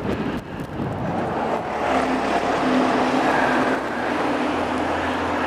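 A motor vehicle's engine running, a steady low hum with a steady tone over it, growing louder about two seconds in.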